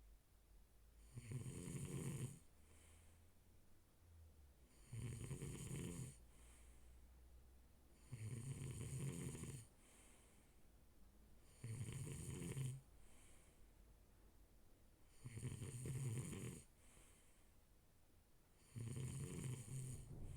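A sleeping person snoring: six rasping snores on the in-breath, one about every three and a half seconds, each followed by a soft breathy out-breath.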